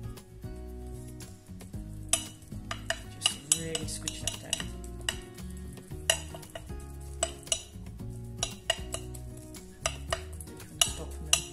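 Table knife tapping and scraping against a glass flan dish as a crushed-biscuit base is pressed in, with sharp, irregular clicks. Soft background music plays underneath.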